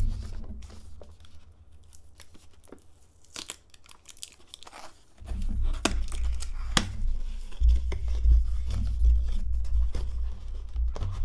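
Cardboard retail box being handled and opened by hand: rustling, scraping and sharp clicks as the end flap is pried up and torn free. A dull low rumble of handling noise comes in about five seconds in.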